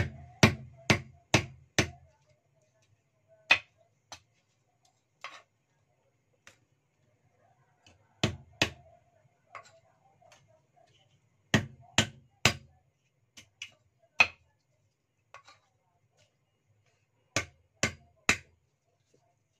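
Cleaver chopping lotus root on a thick round wooden chopping block: sharp chops in quick runs of two to five, with pauses between.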